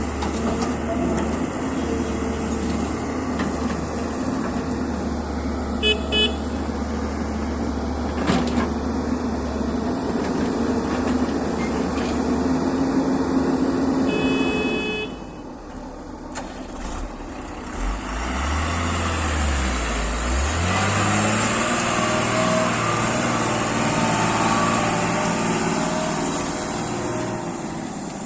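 Heavy diesel engines of an excavator and dump trucks running steadily, with two short horn toots, the second a bit longer, a little before the halfway point. From about two-thirds of the way in, an engine revs up with a rising pitch and runs louder under load.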